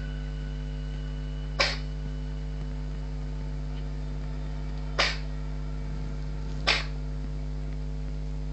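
A cat sneezing three times, short sharp sneezes with the last two close together, over a steady low hum.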